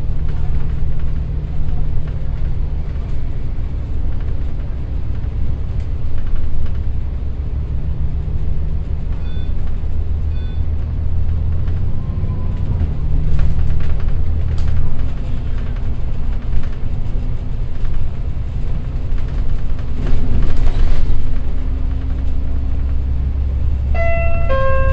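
Double-decker bus engine and drivetrain running under way, with road rumble, heard from inside the bus; the engine note shifts pitch a few times as it changes speed. A short multi-tone electronic chime sounds near the end.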